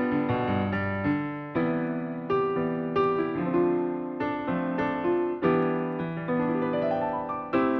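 Background piano music: unhurried melody notes over sustained chords, a new chord struck about every second.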